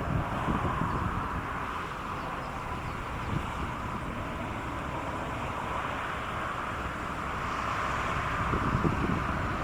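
Strong wind buffeting the microphone in gusts, rumbling hardest about a second in and again near the end, over a steady background rush.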